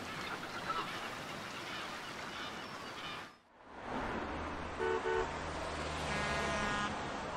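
A steady wash of sea noise that cuts off after about three seconds, then city traffic: engines running, two quick car-horn honks about five seconds in, and a longer horn blast about a second later.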